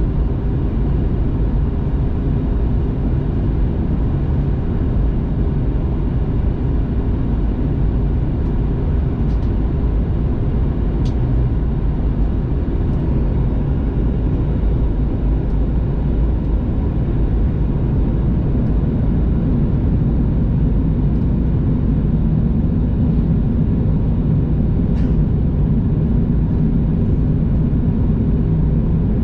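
Steady cabin noise of a Boeing 737-800 in flight, heard from inside the cabin: the deep rumble of airflow and its CFM56 engines, with a few faint ticks and a slight rise in the lower hum in the second half.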